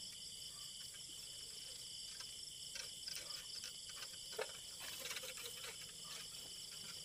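Steady high-pitched chorus of night insects, crickets, with rustling leaves and a plastic bag crinkling in short bursts around the middle.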